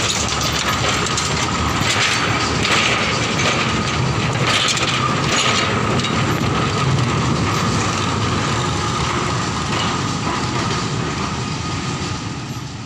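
A narrow-gauge plantation locomotive hauling tipper wagons and a tank wagon rolls past on light rail, wheels clattering over the rail joints, with a steady high whine over the running noise. The sound fades out near the end.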